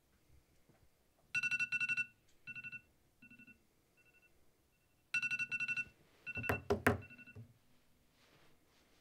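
Smartphone alarm going off: rapid pulsed electronic beeping in two bursts, each trailing off in fainter repeats. A few sharp knocks come about seven seconds in, and the alarm stops.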